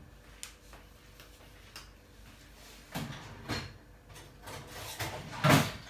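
A few scattered knocks and scrapes of kitchen things being handled, with the loudest, a short clatter, near the end.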